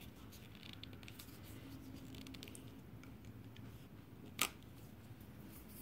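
Quiet handling noises of brush pens and paper, with faint ticks early on and one sharp click about four and a half seconds in.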